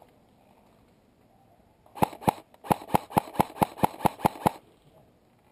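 Airsoft electric rifle fired in quick single shots: two shots, a short pause, then about nine more at four to five a second.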